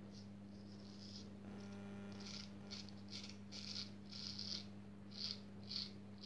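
Freshly honed straight razor cutting through stubble on the jaw and neck: about ten short, faint, crisp scraping strokes, the razor 'singing' as it cuts.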